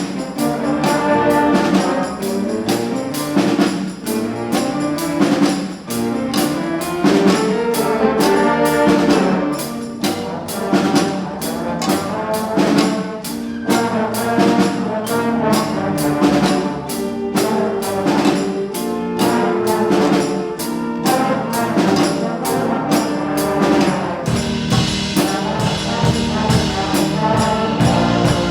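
Student jazz band playing a swing blues, with trumpets and trombones over a drum kit keeping a regular beat. The sound grows brighter and fuller near the end.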